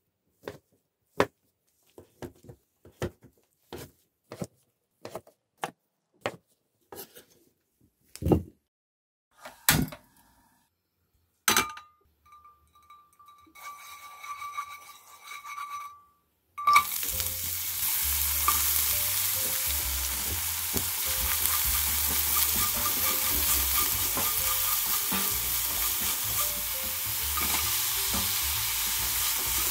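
A kitchen knife cuts cooked chicken breast on a wooden cutting board in steady strokes, about two a second, for the first ten seconds. About seventeen seconds in, chopped green onion hits hot olive oil in a stainless frying pan and sizzles steadily while a spatula stirs it.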